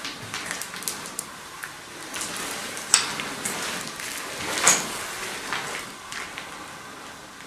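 Footsteps crunching and scuffing over grit and scattered papers on a debris-strewn concrete floor, with many small crackles and two sharper snaps, about three and four and a half seconds in.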